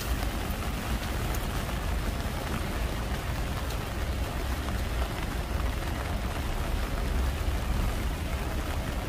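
Heavy rain falling steadily on a city street, a continuous hiss over a low rumble.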